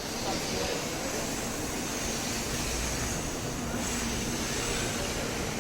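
Steady broad noise of a Shinkansen station platform, with a faint low hum running under a hiss.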